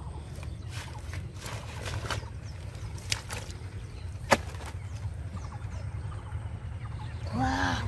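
Wading and groping by hand in shallow muddy water among water hyacinth: scattered soft splashes and clicks over a steady low rumble, with one sharp knock a little over four seconds in. A short pitched call sounds near the end.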